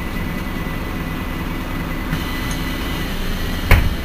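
Heuliez GX 137 Euro 6 diesel city bus under way, heard from inside: a steady hum of engine and drivetrain with a faint high whine, and one sharp knock near the end.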